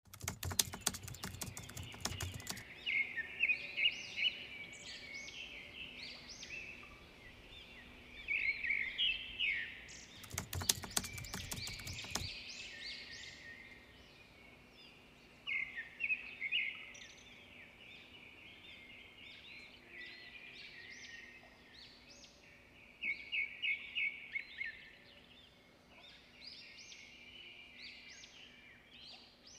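Small birds chirping in repeated quick clusters of high calls, with bursts of crackling noise during the first couple of seconds and again about ten to twelve seconds in.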